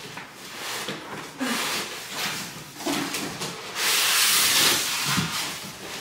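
A large cardboard TV box being slid up off the set: cardboard scraping and rubbing against the foam packing and plastic wrap, in short scrapes with a longer, louder one about four seconds in.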